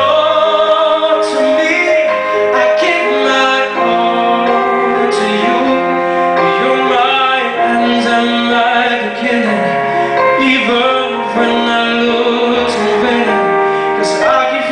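Man singing live into a handheld microphone over instrumental accompaniment, holding long, wavering notes.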